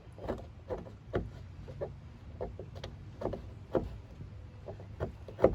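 Short scraping and chipping strokes on hardened body filler built up in a body-panel crease, about two a second, over a low steady hum. The loudest stroke comes near the end.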